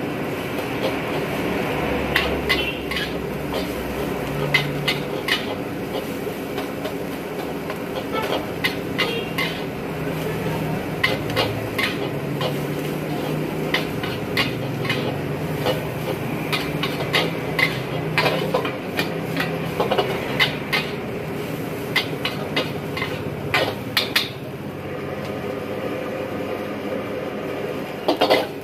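Metal ladle and spatula scraping and clanking against a large wok as fried rice is stir-fried, with irregular sharp knocks several times a second at busy moments. A steady hum runs underneath.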